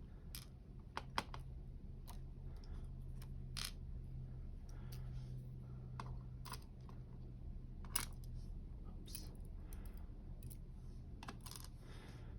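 Small metal clicks and taps, irregular and sparse, as tools and tiny pins are worked out of a dimple lock's pin chambers while it is gutted; two sharper clicks stand out, about a second in and about eight seconds in, over a steady low hum.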